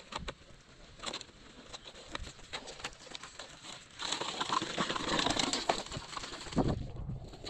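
Small plastic toy wheelbarrow loaded with stones, pushed over gravelly dirt: scattered clicks, crunches and rattles. About halfway through a louder rushing hiss sets in, with a low thump near the end.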